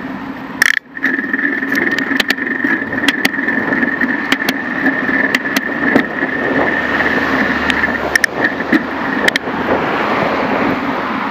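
Riding noise from a bicycle rolling along a paved sidewalk: a steady whine with many sharp clicks and rattles as it goes over bumps. The sound briefly cuts out just under a second in.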